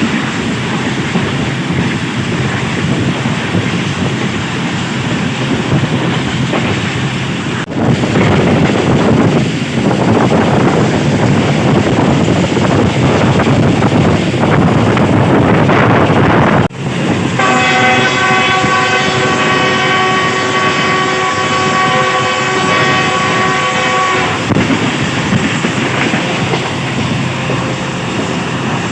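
Rumble and wheel clatter of a fast-running passenger train heard from on board, louder for a stretch about a quarter of the way in. Past the middle the locomotive's horn sounds one long, steady multi-tone blast of about seven seconds.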